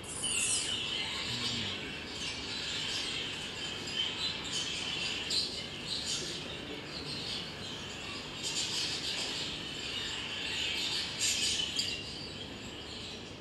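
Budgerigars in a nest box chirping in a continuous high chatter, played back from a video over a hall's speakers. The chatter thins out near the end.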